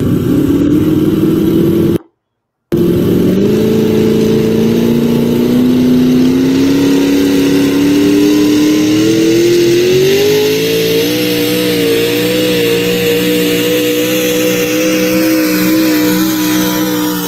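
Tractor-pulling tractor's engine running hard under load during a hook, its pitch climbing steadily for several seconds and then holding high as it drags the weight sled down the track. The sound cuts out briefly about 2 seconds in.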